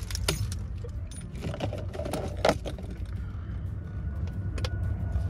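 Car keys jangling and a few sharp clicks as the ignition key of a 1981 Mercedes 240D is handled and turned to the on position, the loudest click about two and a half seconds in, over a low steady hum. The engine is not yet cranking.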